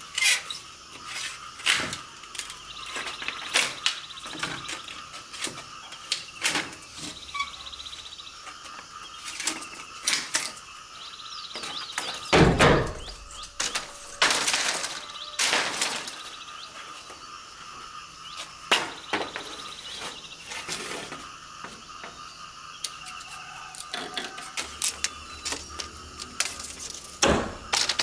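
Irregular knocks and clatters of hand work, some single and some in quick runs, the heaviest about twelve and a half seconds in, over a steady high hum.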